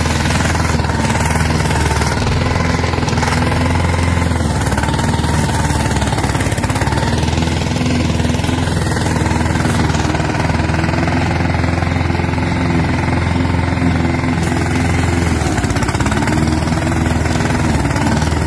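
Petrol walk-behind lawn mower's single-cylinder engine running steadily while cutting grass, its pitch wavering slightly a couple of times.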